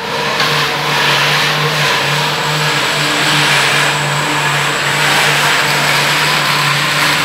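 POP false-ceiling strip roll-forming machine running steadily as it forms perforated steel strip: a continuous low motor hum under a broad, even mechanical noise, with a faint high whine on top.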